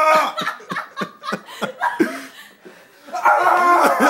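Laughter in a small room: a pitched laugh at the start and again near the end, with a string of short, sharp breaths in between.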